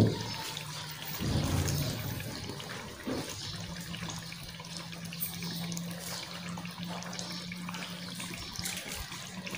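Beef karahi gravy bubbling in an aluminium pot as green chillies are dropped in, with a steady low hum from about three and a half seconds in.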